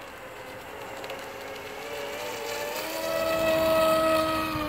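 Homemade RC air boat's two quadcopter brushless motors and propellers whining, growing louder as the boat comes close, with the pitch rising a step about three seconds in.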